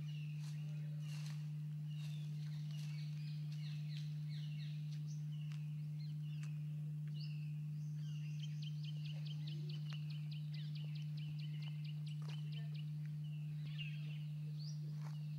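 Birds calling over a steady low hum: many short, repeated falling calls throughout. A rapid ticking trill of about eight notes a second comes in the middle.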